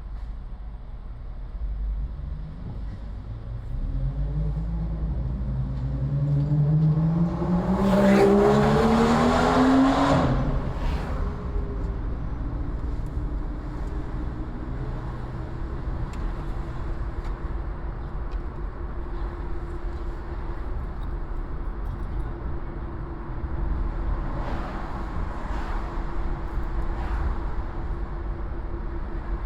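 Road traffic heard from a moving car: a vehicle engine accelerates, its pitch climbing for several seconds to a loud peak about eight to ten seconds in. After that comes a steady road rumble with a faint steady hum.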